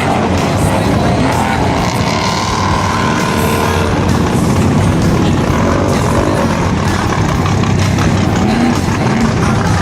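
Class 8 off-road race truck's engine running hard, with a steady clatter of knocks and rattles; near the end the revs rise and fall a few times.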